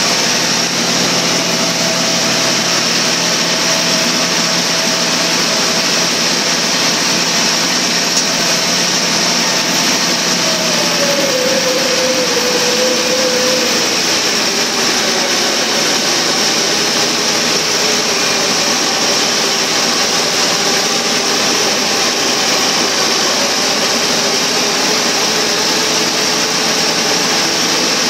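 Caterpillar D8H bulldozer's six-cylinder diesel running hard while the dozer pushes dirt, heard close up from the operator's seat. Its note falls about ten seconds in and drops again a few seconds later as the engine takes load, then holds at the lower pitch.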